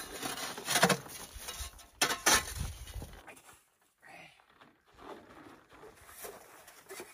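Rustling and knocking of food packages and containers being handled while frozen fish is dug out. The knocks are louder in the first three seconds, then give way to fainter scattered clicks and rustles.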